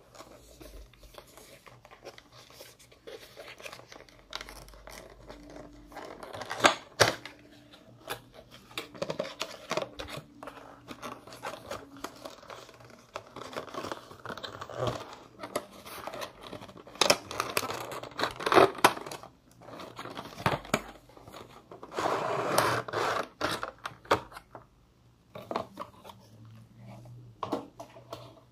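Cardboard box and plastic packaging being handled and opened: irregular scraping, rubbing and crinkling with scattered sharp clicks and taps, loudest in a few bursts near the middle and later on.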